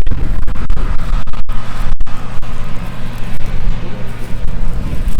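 Loud, low rumble of a running engine, with the sound cutting out briefly a couple of times.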